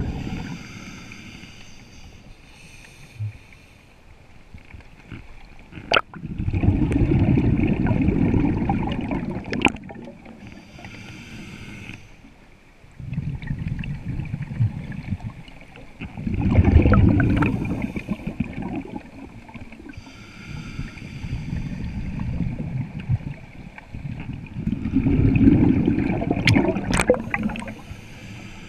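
Scuba diver breathing through a regulator underwater: a hiss on each inhale, then a long, loud bubbling rush as the exhaled air vents, three full breaths.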